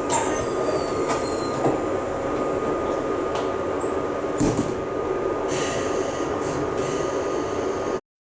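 Kintetsu limited express train standing at a platform with its doors sliding shut, ending in a heavy thud about four and a half seconds in, followed by a few short hisses. Under it the train's steady hum carries a constant tone.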